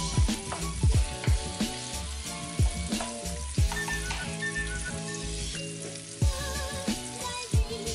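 Sliced onion and garlic sizzling in hot oil in a nonstick wok, stirred with a wooden spatula at first. A background music track with a steady beat plays over it, its drum thumps the loudest sound.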